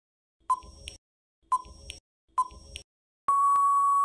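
Quiz countdown-timer sound effect: short electronic tick-beeps about once a second. About three seconds in, a single long steady beep sounds as time runs out.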